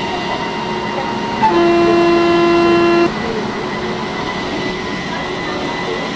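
Indian Railways locomotive horn sounding one steady blast of about a second and a half, over a steady background rumble.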